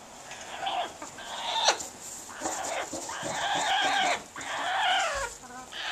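A female Salvin's red-lored Amazon parrot giving a run of calls, a second or less each with one longer one in the middle, several ending in a quick falling glide. These are the courtship noises of a hen in breeding condition.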